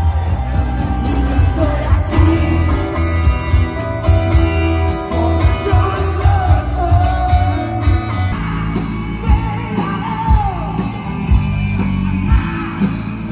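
Live band playing loudly with a lead singer: heavy bass and a steady drumbeat that comes in about two and a half seconds in.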